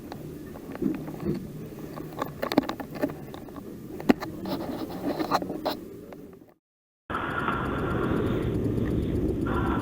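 Scattered scraping and clicking handling sounds for about six and a half seconds, then a brief silence. After that, a snowmobile engine runs steadily and louder, with a constant high whine.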